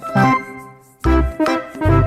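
Upbeat background music on keyboard or electric organ, short bright notes over a bass beat about twice a second, with a brief break a little before a second in.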